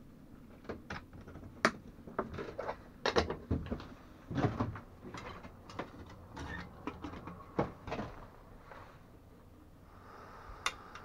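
Irregular metallic clicks, knocks and clunks as an aluminium coffee pot is set onto a small camping-stove burner and the stove's aluminium gimbal frame is handled.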